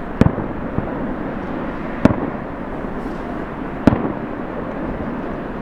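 Fireworks going off: three sharp bangs about two seconds apart over a steady background noise.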